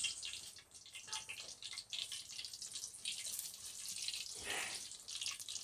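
Hot oil with cumin seeds sizzling in a steel pot, a soft hiss full of quick, irregular crackles and pops.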